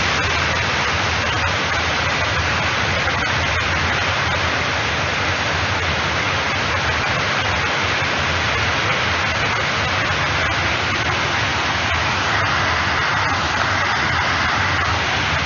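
Rushing water of a large waterfall: a loud, steady, unbroken rush of falling water.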